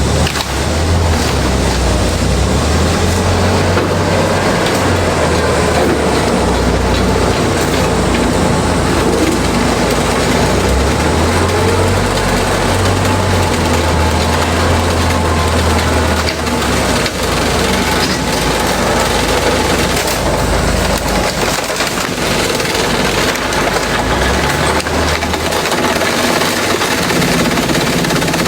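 Industrial shredder chewing through bamboo: a loud, dense crackle of crushing and splintering wood over the machine's low drone, which steps up and down in pitch every few seconds.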